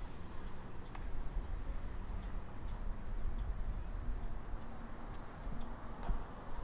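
Street ambience while walking: a steady low rumble with faint, scattered high bird chirps and a few light clicks.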